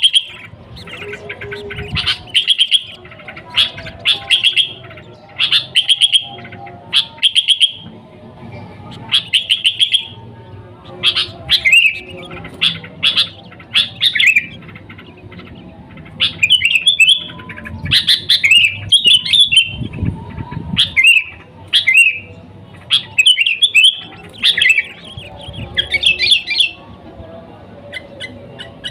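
Sooty-headed bulbul (kutilang) singing lively, loud song: short chirping phrases in quick succession, about one a second, becoming more varied and warbled about halfway through.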